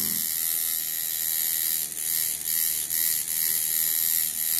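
Coil tattoo machine running steadily, a dense electric buzz of its armature bar striking the contact screw, cutting off right at the end. It is set up as a colour packer and running really nice.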